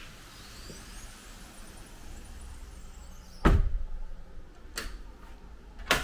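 A sliding door bangs shut about three and a half seconds in with a heavy thud, followed by two sharper knocks near the end.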